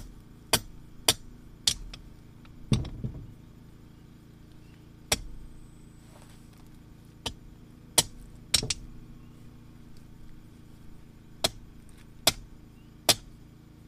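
A hammer striking the top of a half-inch rebar grounding rod: about a dozen sharp metal blows at an uneven pace, driving the rod down into compacted gravel.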